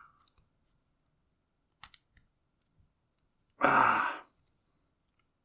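Padlock shims and a small laminated steel padlock being worked by hand: a few sharp metallic clicks about two seconds in, then a louder short rush of noise lasting under a second.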